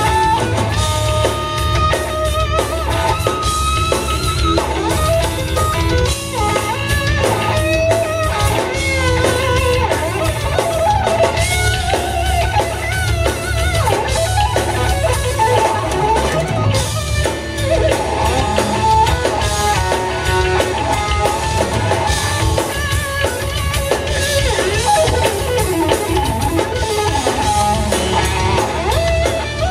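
Live instrumental rock played by a trio: electric guitar playing a lead melody with bends and vibrato over a drum kit.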